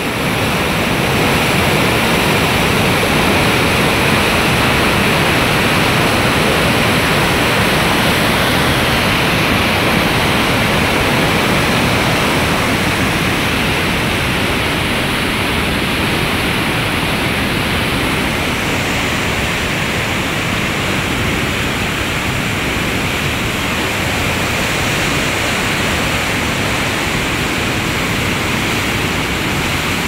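Muddy flash-flood torrent rushing, a loud, steady wash of churning water. It changes slightly in tone a little past halfway.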